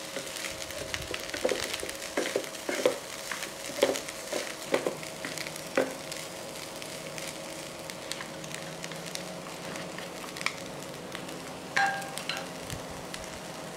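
Fried rice with diced bell peppers sizzling in a nonstick frying pan while being stirred and tossed with wooden chopsticks and a wooden spatula, the utensils clicking and scraping against the pan. The clicks come thick in the first half and thin out later, leaving mostly the steady sizzle.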